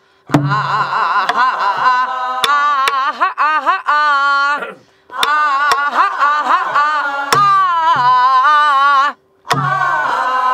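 A woman sings a wordless "a-ha-ha-ha" passage of a Namdo (southwestern Korean) folk song, with a wide, wavering vibrato and short breaths between phrases. Alongside it she strikes a buk, a Korean barrel drum, with a stick at irregular intervals.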